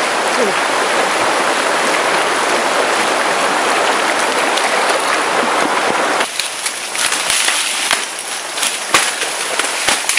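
Jungle stream rushing over rocks, a steady loud hiss of running water. About six seconds in it drops away and gives way to scattered clicks and rustling of the camera being handled and carried through undergrowth.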